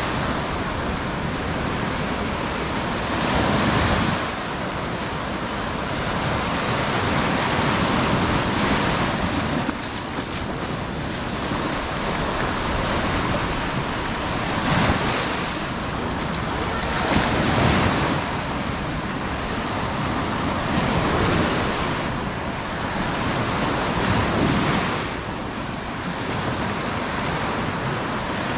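Sea waves washing onto a beach, the surf swelling and easing every few seconds.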